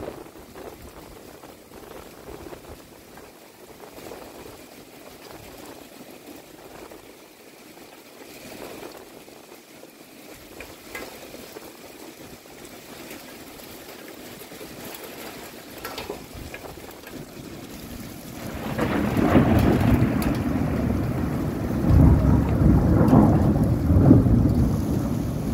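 Steady rain falling, then about three-quarters of the way through a long, low rumble of thunder rolls in and grows louder toward the end.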